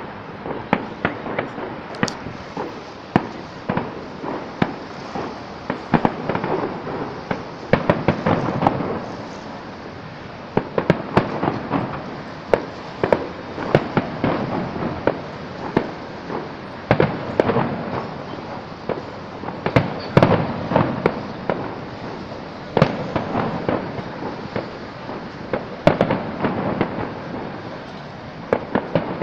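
Aerial fireworks going off in quick succession: sharp bangs and crackle throughout, bunching into denser volleys every few seconds.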